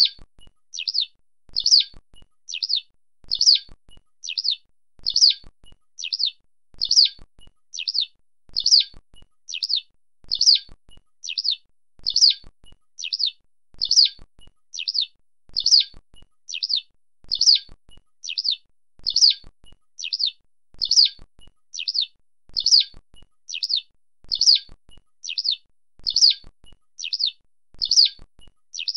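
Eurasian skylark (Alauda arvensis) giving its call, a short, high chirrup repeated about once a second in an even, unbroken series.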